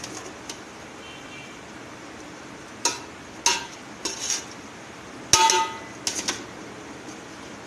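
A small bowl knocking against an aluminium pot while scooping boiled rice: five or six sharp clinks with a brief ring, starting about three seconds in and spaced roughly half a second apart, the loudest a little past five seconds.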